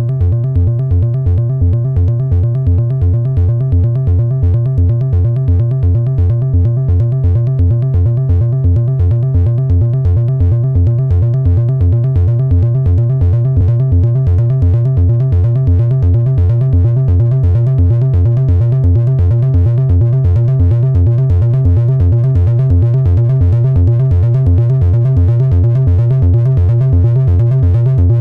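Behringer 2600 analog synthesizer playing alone: a steady, evenly repeating low bass note, with a faint steady high tone held above it.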